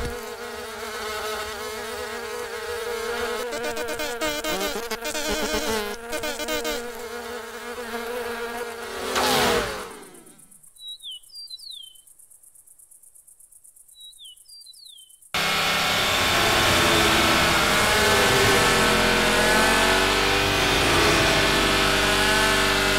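Cartoon ladybug wing buzzing in flight, ending about ten seconds in with a falling whoosh. Then a quiet stretch with two short high chirps, and from about two-thirds of the way through a loud, steady buzz of ladybug wings speeding along.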